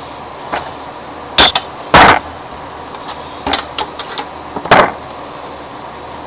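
Sharp clicks and knocks of a flat metal tool prying a castor out of a plastic Steelcase office chair base leg. There are about eight short, uneven clacks, the loudest and longest about two seconds in.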